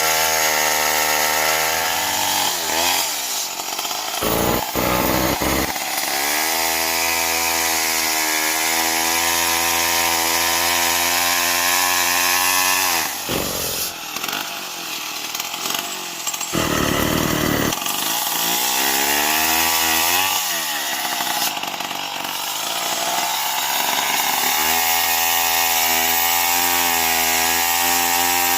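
STIHL MS 070 large two-stroke chainsaw running at high revs while sawing wood. Its engine note drops and climbs back several times, as the chain loads up in the cut and frees again.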